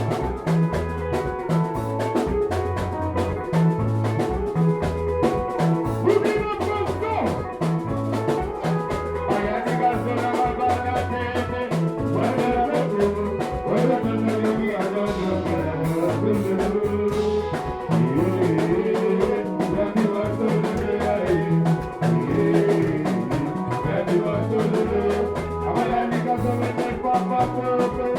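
Upbeat dance music with a steady drum beat and a bass line under melodic instruments.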